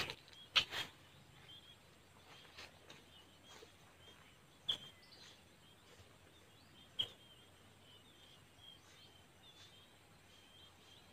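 Quiet outdoor ambience with small birds chirping in short, high notes over and over. A few sharp clicks come near the start, and two more single clicks follow later.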